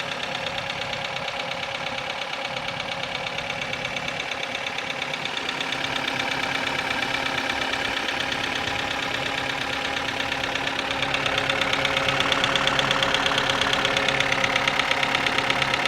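Kia Ceed engine running with a rapid, cyclic clacking from the top of the engine, an engine knock. The running gets louder in two steps, about five seconds in and again near eleven seconds.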